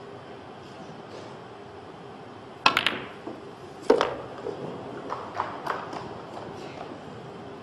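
A pool shot. The cue strikes the cue ball with a quick cluster of sharp clicks about two and a half seconds in. A louder single ball-on-ball click follows about a second later, then several lighter clicks as the balls roll and strike again.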